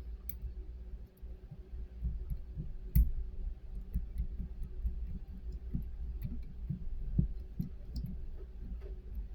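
A combination wheel on an Everbilt combination lock barrel bolt being dialed by hand, clicking irregularly from position to position, about two or three clicks a second, with a louder click about three seconds in. A soda-can shim sits against the wheel to feel for its gate while decoding the combination.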